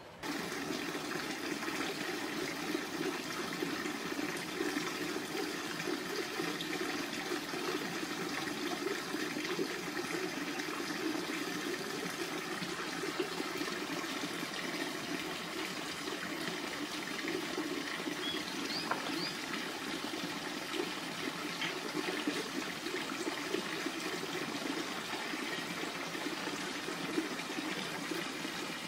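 Steady rushing sound of running water, even and unbroken throughout, with a couple of faint high chirps about two-thirds of the way through.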